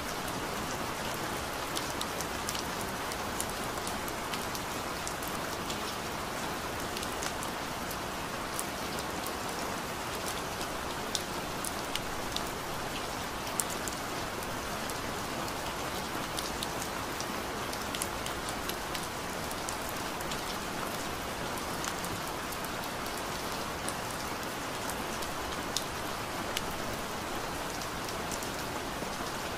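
Steady rain falling, with scattered light drop ticks over an even hiss.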